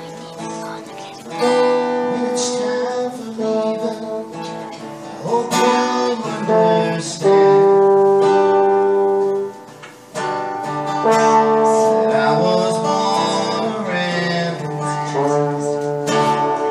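Acoustic guitar strumming chords under a trombone playing an instrumental solo of held notes with slides between them, the loudest a long sustained note near the middle.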